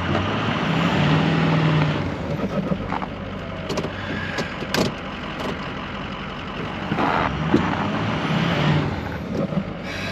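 A truck engine running, with a few sharp knocks and clanks over it.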